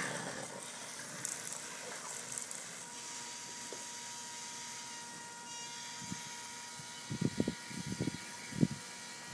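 Lawn sprinklers running with a steady hiss of spray, a faint steady tone joining about three seconds in. Several low thumps come in the last couple of seconds.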